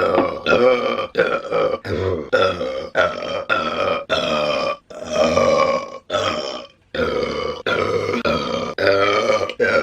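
A woman belching repeatedly: a quick string of short, pitched burps, about two a second with brief gaps, one held a little longer about five seconds in.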